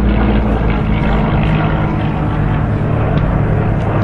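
Steady, loud drone of a piston-engined WWII fighter's propeller and engine during a low attack run.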